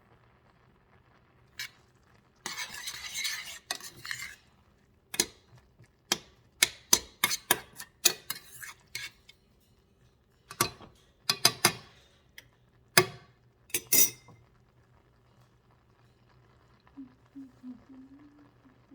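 A metal spoon or utensil stirring and scraping in a bowl, then a long run of sharp taps and clinks against the dish.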